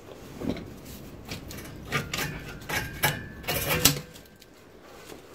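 Irregular rubbing and scraping handling noises from someone working under a car, with a short squeak about three seconds in.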